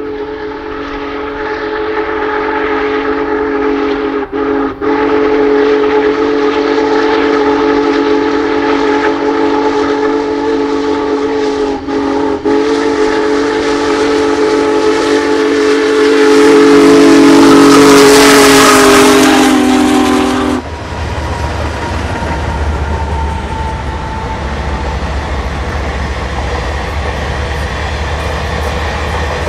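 Union Pacific Big Boy 4014's steam whistle sounds one long chord, broken by two brief pairs of gaps. It gets loudest and drops slightly in pitch as the locomotive passes, then cuts off suddenly. The low rumble of the passing train follows.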